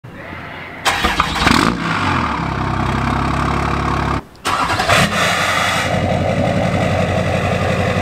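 Diesel pickup engines running through 5-inch exhausts. One starts about a second in and settles into a loud idle; after a brief break near the middle, another loud diesel idle follows.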